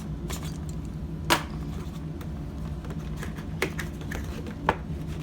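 Toy packaging being handled and opened: scattered light clicks and taps of plastic and cardboard, with one sharp snap about a second in and two more near the end, over a steady low hum.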